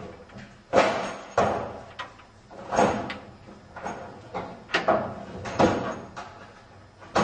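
About half a dozen sharp, irregular wooden knocks and clatters, each dying away quickly: ipé hardwood deck boards being shifted and set down against the wooden joists and the neighbouring boards.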